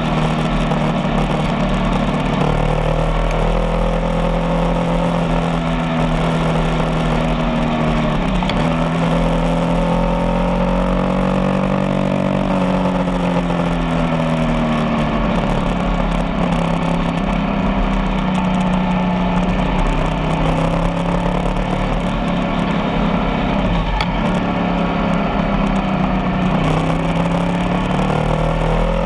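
Motorcycle engine running steadily under way, its pitch dipping briefly and climbing again a couple of times as the throttle eases and opens, with rushing wind and road noise.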